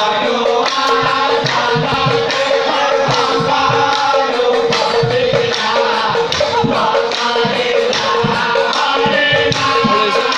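Nagara naam: a group of men singing an Assamese devotional chant in chorus, with steady cymbal and drum strikes and a held drone note underneath.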